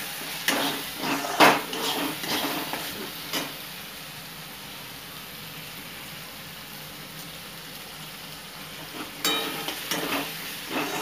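Ground masala paste sizzling in hot oil in a pan, stirred with a spatula that scrapes and knocks against the pan for the first few seconds and again near the end, with a steady sizzle in between. The masala has fried through and is releasing its oil.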